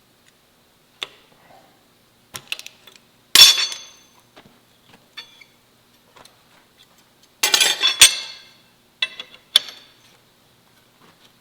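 Scattered metal-on-metal clanks from steel tools and bar stock: about half a dozen sharp ringing strikes, the loudest about three seconds in, with a brief clatter of several hits near the middle of the second half.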